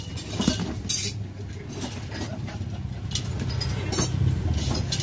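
A few light, sharp metallic clinks over a steady low hum.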